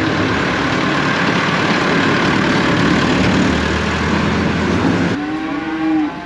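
Farm tractor engine running close by, loud and steady. It cuts off abruptly about five seconds in, followed by a short held call.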